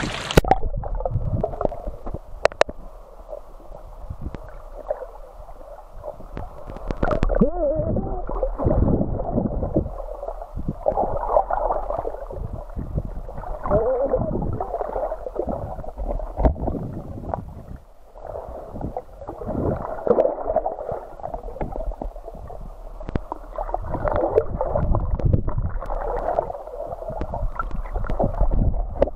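Muffled underwater sound heard through a submerged camera: water gurgling and sloshing in slow swells, with a steady low hum underneath and a few faint clicks.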